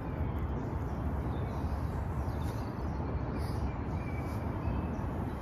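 Steady low outdoor background rumble with a few faint bird chirps.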